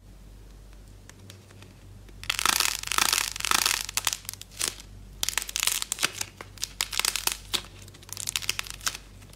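A soft clay-and-slime figure squeezed and torn apart by hand, crackling and crinkling. It starts about two seconds in with a dense burst of crackles, then goes on as a run of sharp crackles and pops.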